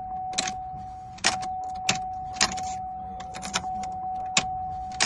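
Keys jangling and clicking as a freshly cut key is worked back and forth in a 2004 Cadillac SRX's ignition lock, to check whether it turns smoothly. A steady high electronic tone sounds underneath.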